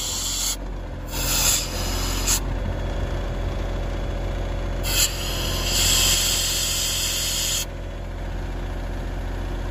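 Ingersoll Rand P90 air compressor's three-cylinder diesel engine running steadily, with bursts of compressed air hissing out: a short one at the start, another lasting about a second from about a second in, and a longer one from about five seconds in to near eight seconds.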